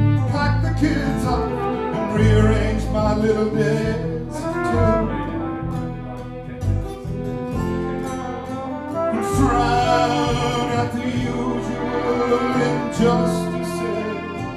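Live acoustic band playing an instrumental passage: a flugelhorn carries the melody over strummed acoustic guitar and plucked double bass, with violin.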